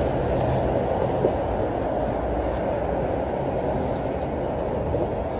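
Street noise: a steady low rumble of wind on the microphone, mixed with car traffic at the street corner.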